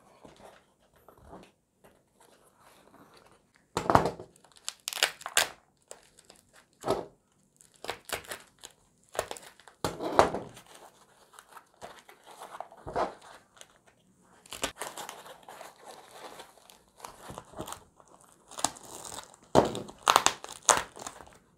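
Packaging being opened by hand: a cardboard shipping box handled, then white plastic wrapping crinkled and torn off the product box, in irregular crackling rustles with louder crinkles and rips now and then, the loudest near the end.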